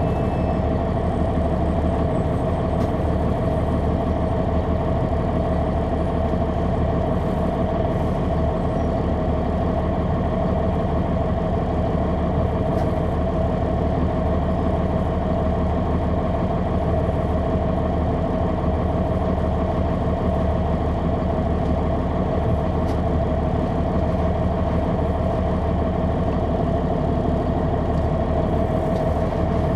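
Caterpillar C9 ACERT straight-six diesel engine of a 2003 Neoplan AN459 articulated transit bus running steadily, a low drone with a steady whine over it, holding the same level and pitch throughout.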